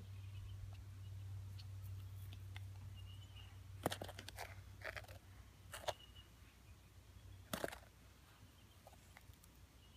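Faint crunching and scraping of sand as a child handles a sand-filled sneaker, with a handful of short crunches in the second half over a low hum.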